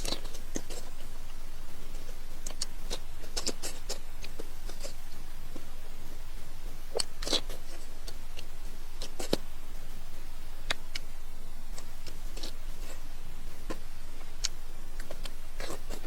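Close-miked eating sounds: sharp, irregular crunches and wet clicks from biting and chewing food.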